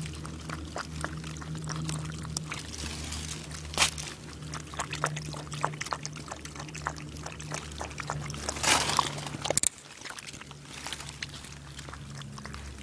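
A Welsh terrier lapping muddy puddle water: a run of quick, wet, irregular laps several times a second, with a louder burst of rustling and splashing about two-thirds of the way in.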